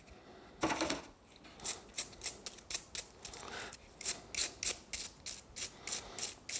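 Short scraping strokes, about two or three a second after a longer first stroke, as grimy mower-blade bolts soaking in petrol are scrubbed. The dirt on them is baked on.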